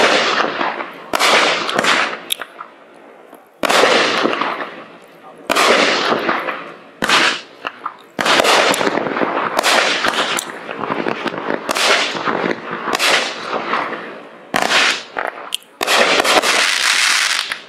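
Raccoon Fireworks 'Land That I Love' 200-gram, 16-shot consumer cake firing its shots one after another, about one a second or so. Each shot is a sudden launch and burst followed by a fading hissing, crackling tail.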